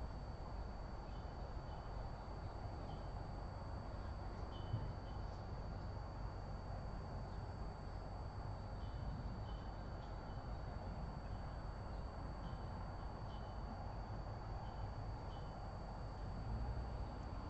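Steady background hiss with a faint, high, constant whine, and a small bird chirping in the background: short single chirps, about a dozen, coming in loose groups.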